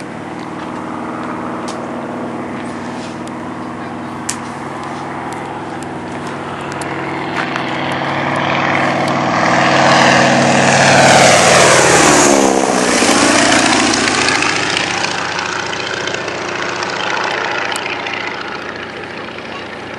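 Boeing Stearman biplane's radial engine in a low flypast: a steady engine note grows louder, peaks about eleven seconds in, and drops in pitch as it passes, then fades away.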